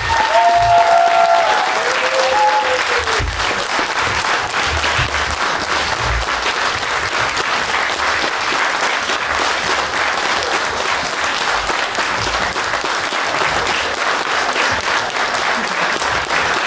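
Audience applauding steadily in a theatre hall, with a few gliding voice-like calls over it in the first couple of seconds.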